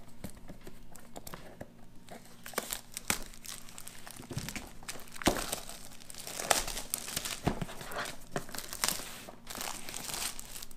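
Clear plastic shrink-wrap crinkling and tearing as it is cut and peeled off a cardboard box, in irregular crackles and rustles.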